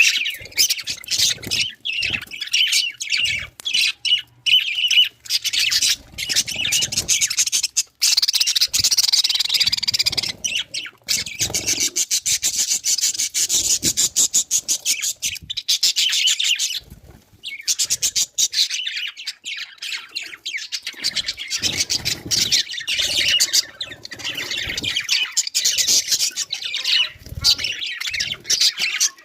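Pet budgerigars chattering, a fast, nearly unbroken stream of high chirps and squawks.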